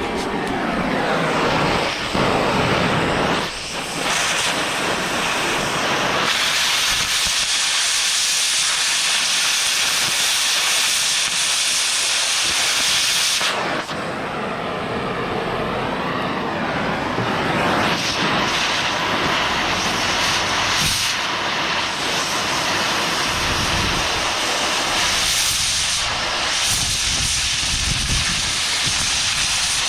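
Oxy-acetylene cutting torch hissing steadily as it cuts into a cast steel auger pilot bit. The hiss grows louder and sharper from about 6 to 13 seconds in, and again briefly near the end.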